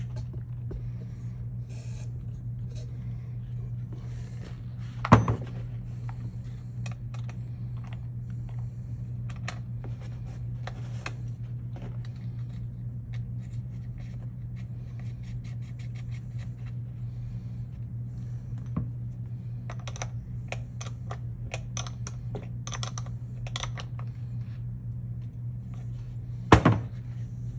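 Battery terminal nuts being tightened with a hand wrench: runs of light metallic clicks, with a sharp metal knock about five seconds in and another near the end, over a steady low hum.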